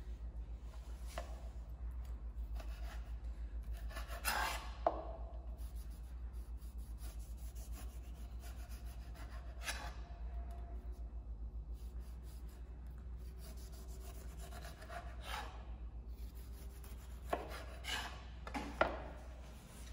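Chef's knife cutting the peel and pith off a whole orange on a bamboo cutting board: intermittent rasping strokes as the blade saws through the rind, with a couple of sharp knocks of the blade on the board. A steady low hum runs underneath.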